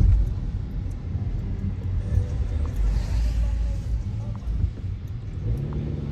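Steady low rumble of a car or road traffic, with a brief swell of hiss about three seconds in.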